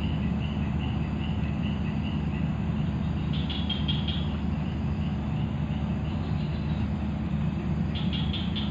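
Steady low rumble with a small creature chirping faintly and repeatedly, plus two short high trills, one about three seconds in and one near the end.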